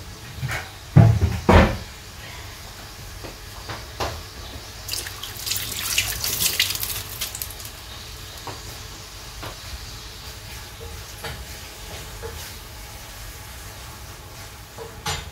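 Kitchen work sounds: a few pan knocks at the start, then about two seconds of water running from a tap in the middle, with scattered light clinks.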